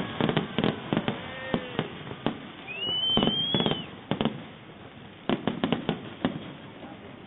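Fireworks going off: a run of sharp bangs and crackles, with a whistling shell near three seconds in. The bangs thin out briefly, then a fresh cluster comes about five seconds in.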